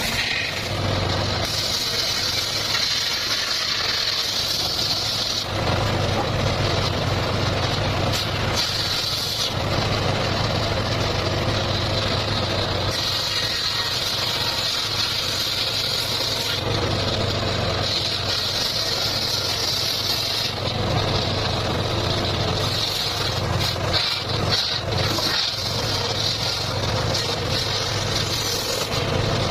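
Motor-driven circular saw running with a steady low hum, its blade sound rising and falling in spells of a few seconds as material is fed through and cut.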